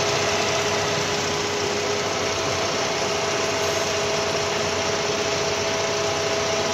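Centre lathe running steadily during plain turning: a constant machine hum with two steady whining tones over it.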